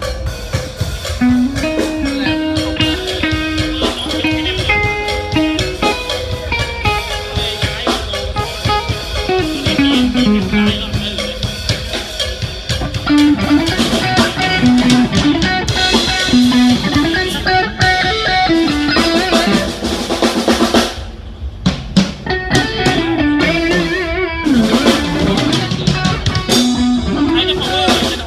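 Live band playing an instrumental passage: a guitar melody over a drum kit, with a short break about 21 seconds in.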